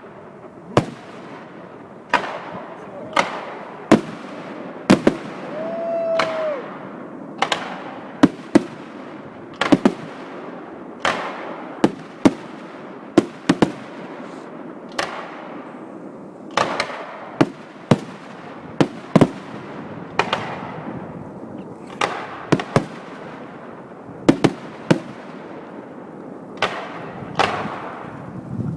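Fireworks display: a steady barrage of shells bursting with sharp bangs, roughly one a second, each trailing off in a fading echo.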